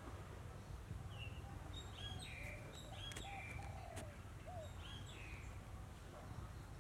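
Small birds chirping in the background: short high chirps, most of them in the middle seconds, and a few lower arched calls, over a faint low rumble.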